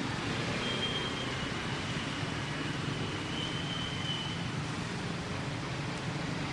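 Steady rushing outdoor background noise, with a faint thin high tone held for a few seconds in the middle.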